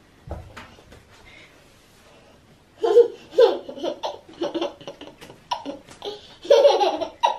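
A young girl laughing in repeated short bursts, starting about three seconds in after a quiet pause with a soft low thump.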